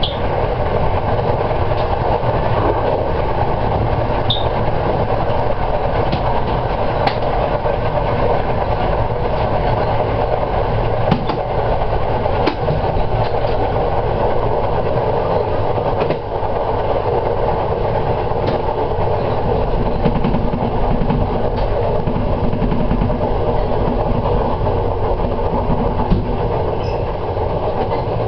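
Train running at speed on the track: a steady, loud rumble of wheels on rails with scattered sharp clicks.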